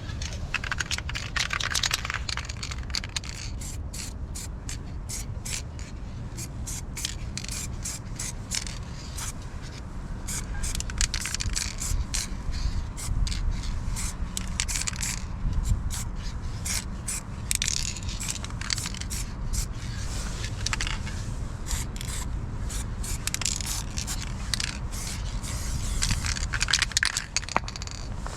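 Repeated scraping strokes of a hand tool against a hard surface, coming in quick irregular runs over a steady low rumble.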